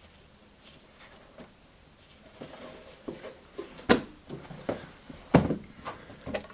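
Handling noise as someone returns to the telephone with a folder of papers: near-quiet room tone for about two seconds, then rustling and a run of clicks and knocks, the sharpest about four and five and a half seconds in.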